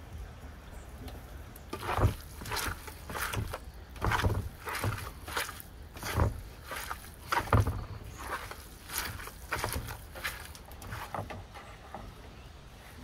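Hands squeezing and kneading a wet mix of minced meat, chopped onion, tomato and pepper in a metal tray, making irregular squelches and slaps with a few dull thumps. They start about two seconds in and thin out near the end.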